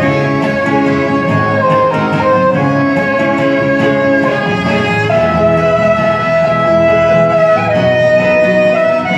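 A quartet playing a polo margariteño, a Venezuelan folk tune: a melody of long held notes, one drawn out for a couple of seconds around the middle, over a steady rhythmic accompaniment.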